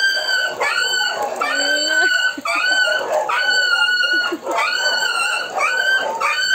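Dog whining in a run of high-pitched cries, each lasting under a second, repeated about once a second, while the dogs are mating.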